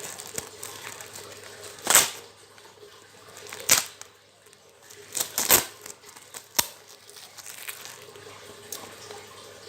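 Packaging being torn open and crinkled by hand: several short, sharp rips, about two seconds in, near four seconds, a close pair around five and a half seconds and one more just after six and a half seconds, with quieter rustling between.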